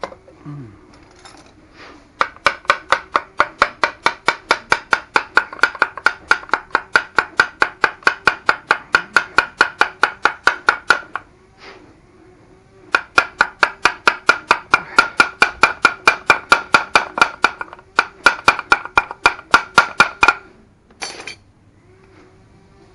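Rapid hammer taps on a Honda C70 engine to free and split its stuck crankcase halves, about four or five strikes a second, each ringing with the same metallic note. They come in two long runs with a pause of about two seconds between them, then a last single tap near the end.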